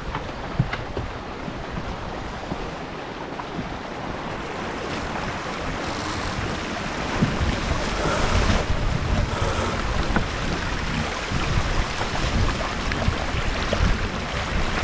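Wind buffeting the microphone over water rushing and splashing along the hull of a J/80 sailboat under way; the wind noise grows louder about halfway through.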